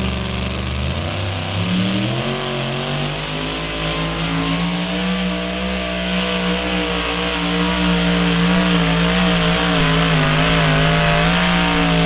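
Supercharged engine of a two-wheel-drive pulling truck, revving up sharply a second or two in and then held at high revs, its pitch wavering slightly as it drags the sled down the track. It grows louder near the end as the truck comes past.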